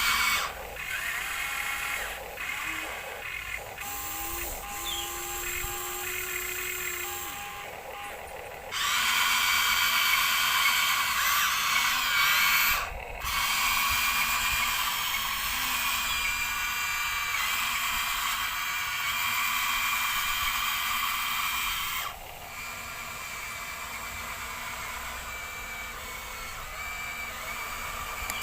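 Small electric motor and plastic gearbox of a toy construction vehicle whirring, running in stretches: louder for a long spell from about a third of the way in, with a brief stop partway, then dropping back to a softer whir.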